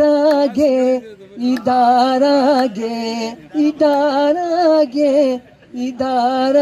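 A man singing into a microphone, drawing out several long, wavering held notes with short breaks between them.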